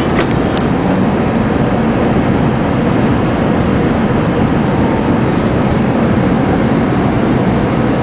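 SEPTA Market-Frankford Line M-4 subway-elevated train running at speed, heard from inside the car: a steady loud rumble of wheels on rail, with a few light high clicks just at the start.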